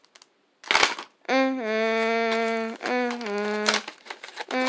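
A person humming a slow tune in long held notes that step between a few pitches, starting about a second in. Just before it, a short crackle of cardboard and plastic packaging being torn.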